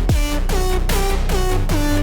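Electronic background music with a steady beat: deep kick drums and short synth notes that dip in pitch.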